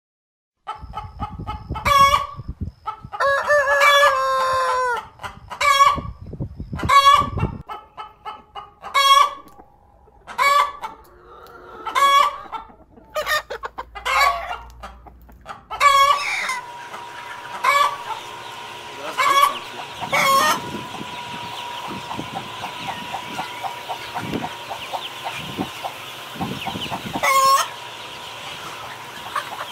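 Hens clucking and cackling in loud repeated short calls, with a rooster crowing in a long call that falls in pitch about three to five seconds in. From about sixteen seconds in the calls thin out over a steady hum and hiss.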